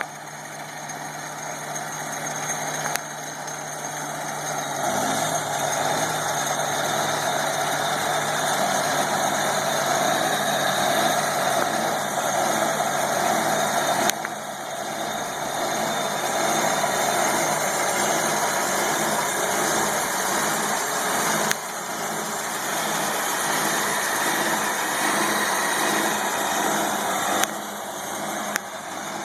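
Engine of a 1940s Longyear core drill running steadily, growing louder over the first several seconds. A few sharp clicks come through, each followed by a small drop in level.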